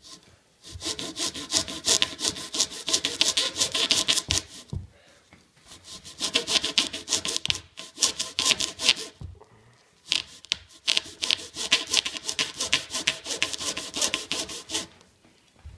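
Small hand saw cutting back and forth into a leather-covered Rawlings Major League baseball, in three bouts of quick rasping strokes with short pauses about five and ten seconds in.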